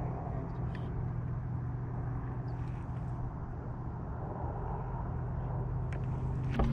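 A boat's motor running with a steady low hum, and a sharp knock near the end.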